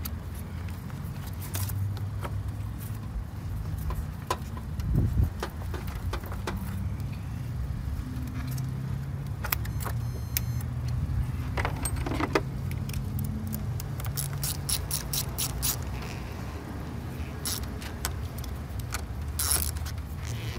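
Metal clinks and rattles of a battery terminal clamp and socket wrench being worked onto the post of a car battery. In the second half come runs of quick, evenly spaced clicks from a ratchet tightening the terminal nut, over a steady low rumble.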